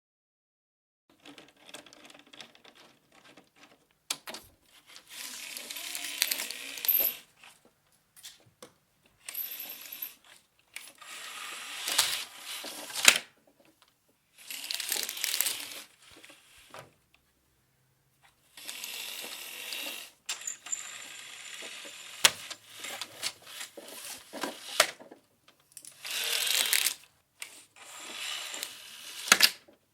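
Window blinds being opened and closed: a series of separate rattling pulls, each a second or two long, with sharp clicks among them and short pauses between.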